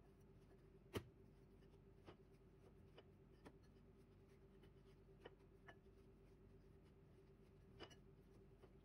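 Near silence with a faint steady hum, broken by a few soft knocks and clicks as dough is kneaded by hand in a bowl. The sharpest knock comes about a second in.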